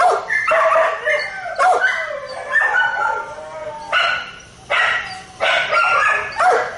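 Pit bull-type dog barking and yipping in a rapid series of short, pitched calls, about two a second.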